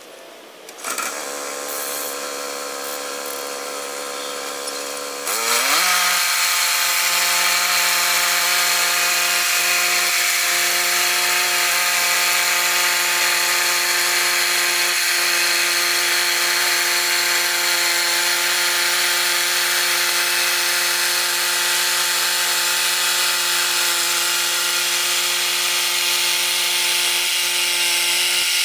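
Woodland Mills portable bandsaw mill's gas engine starting about a second in and idling, then revving up about five seconds in to full speed. It then runs steadily, driving the band blade through a long log as the saw head is pushed along the track.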